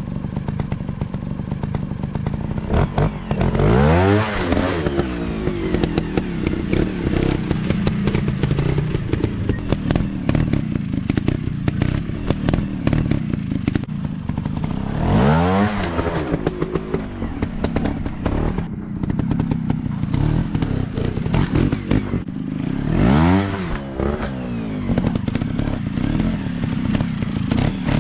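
Dirt bike engines running, with the engine pitch climbing and falling back in three strong revs: about four seconds in, around the middle, and past three-quarters of the way. Scattered clicks and knocks sound throughout.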